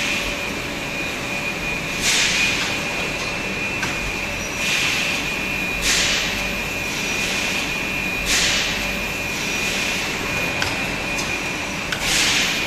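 Fully automatic shrink-wrap packing machine for water bottles running: steady machine noise with a thin high whine, broken by a short hiss about every two to three seconds.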